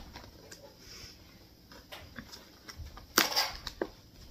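Cardboard snack box and its packaging being handled: small clicks and taps, then a loud crinkling rustle a little after three seconds in and a sharp click just after it.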